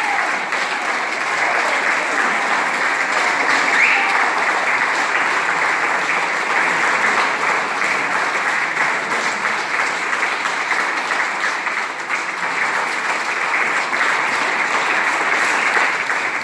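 Audience applause, many hands clapping steadily without a break.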